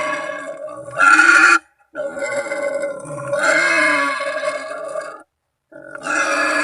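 Wild boar calling with a series of harsh, pitched cries, each half a second to three seconds long, separated by brief breaks.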